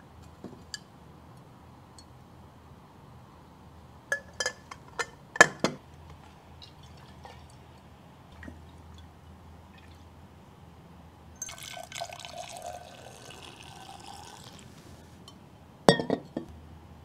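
Glass coffee-serving ware clinking, a quick run of clinks about four to six seconds in. Brewed coffee is then poured from a glass server into a glass for about three seconds, followed by more glass clinks near the end.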